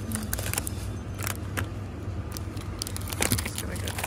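Steady low hum of a supermarket aisle with scattered light clicks and rattles of handling. Near the end, a hand reaches in among plastic-wrapped snack bars in a cardboard display box.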